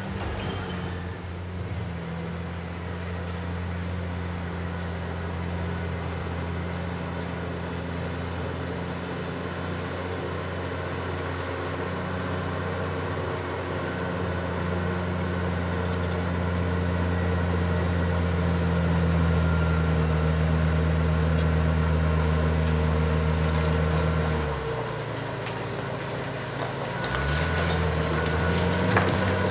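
Heavy diesel earthmoving machinery running: a steady, deep engine drone that grows louder toward the middle. About five seconds before the end it drops off, then revs back up.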